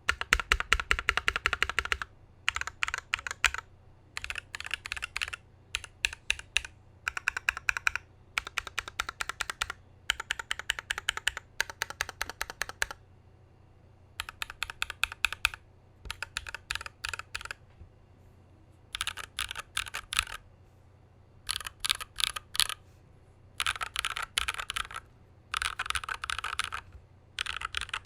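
Typing on an IDOBAO ID80 mechanical keyboard with Krytox 205g0-lubed, filmed Holy Panda tactile switches, an aluminium plate, foam dampening and PBT keycaps. Keystrokes come in rapid runs of a second or two, broken by short pauses.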